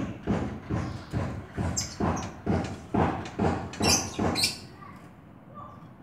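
Oriental magpie-robin hopping quickly back and forth between the perches of its cage, making a rapid run of thumps about three a second that stops about four and a half seconds in.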